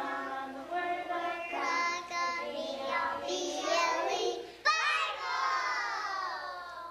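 A group of young children singing a song together. About two thirds of the way through they break into a loud, long note that slides down in pitch.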